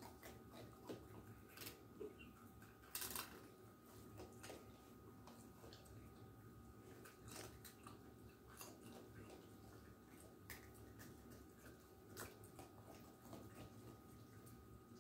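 Faint, irregular crunching clicks of a baby raccoon chewing food picked up from the carpet, with a louder cluster about three seconds in, over a faint steady hum.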